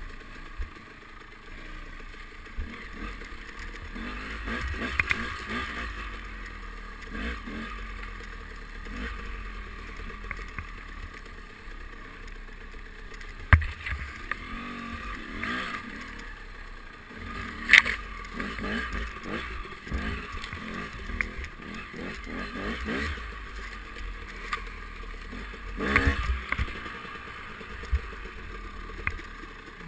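Dirt bike engine running at low speed along a rough trail, with clatter and knocks from the bike over the ground; three loud, sharp knocks stand out, about halfway, a little later, and near the end.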